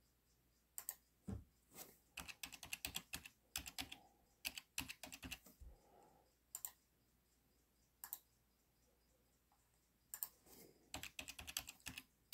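Typing on a computer keyboard: quick uneven runs of keystrokes separated by pauses, with a longer lull in the middle, as registration settings are keyed in.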